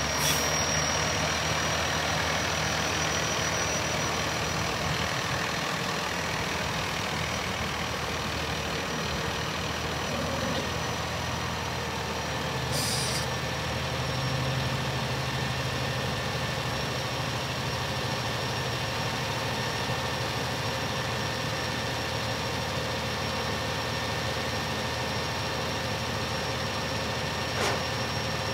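The diesel engine of a 2011 Peterbilt 348 dump truck running steadily as the truck moves and its hydraulic hoist tips the dump bed up. The engine note firms up for a few seconds about halfway through, with a brief hiss of air.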